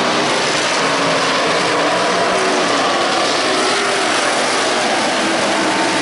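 Several Modified race cars' engines running together as a pack circulates the oval, a loud, steady blend of engine notes wavering in pitch.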